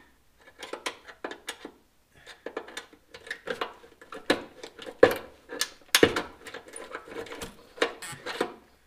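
A wrench working a nut splitter on a stuck nut, making uneven metallic clicks and clinks, several a second.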